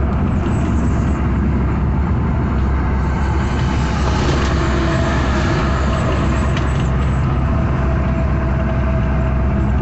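Truck's diesel engine and tyre noise droning steadily inside the cab while cruising at highway speed.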